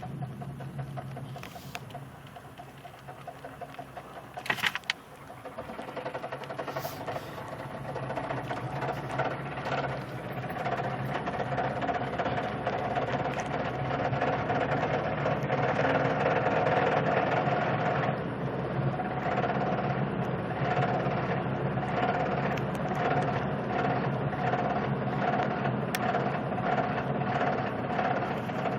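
Engine running with a rapid, rhythmic knocking that grows louder as the engine speeds up, building from about a quarter of the way in. A brief loud clatter about four and a half seconds in.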